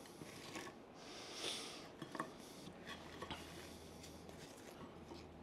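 Faint handling sounds at a kitchen counter: a brief scrape about one and a half seconds in, then a few light clicks over quiet room tone.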